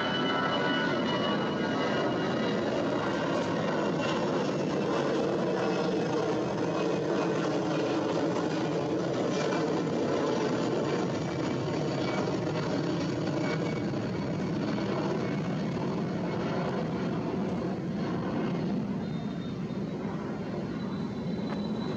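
Jet engines of an Airbus A320 at takeoff power, a steady loud roar with a high whine that fades after the first few seconds. The roar eases slightly near the end as the aircraft pulls away.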